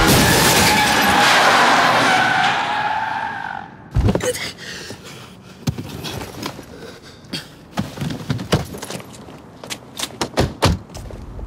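Car tyres squealing in a long skid that stops with a loud thud about four seconds in, the sound of a car collision. Scattered short knocks and clicks follow.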